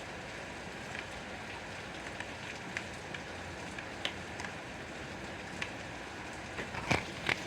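Steady rain falling, with scattered louder drops hitting a surface, several of them close together near the end.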